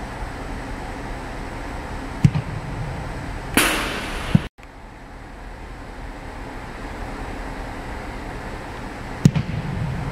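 Two placekicks of a football off a kicking tee, each a sharp boot-on-ball thud that echoes in a large indoor hall, the first about two seconds in and the second near the end. A short rushing noise ending in a knock comes between them, over a steady hum from the building.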